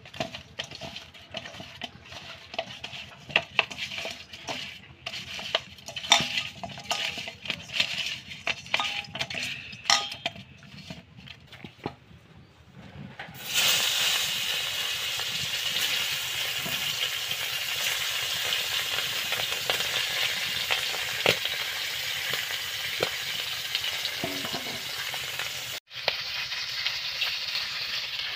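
Hands mixing raw fish pieces with spice in a stainless steel bowl, with irregular wet squelches and clicks. About halfway through, fish pieces hit hot oil in a wok and sizzle steadily and loudly, with a metal spatula scraping now and then as the pieces are turned.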